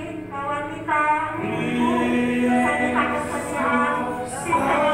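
Voices singing a slow worship song with musical accompaniment, the melody moving in held notes. It gets louder about a second in.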